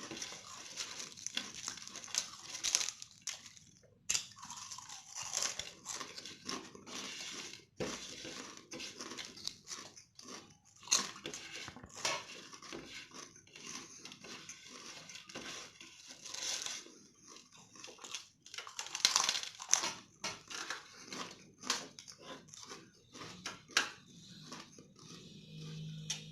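Close-up crunching and chewing of potato chips: dense, irregular crisp crackles, some sharp and loud, coming one after another.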